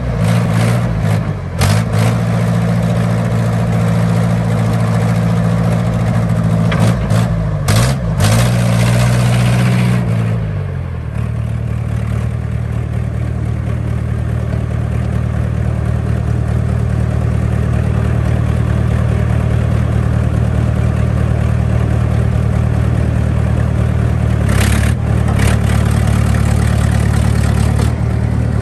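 1993 John Deere 310D backhoe's diesel engine running at raised revs, its pitch wavering, with a few knocks. About ten seconds in the revs drop and it settles to a steady idle, with more knocks near the end.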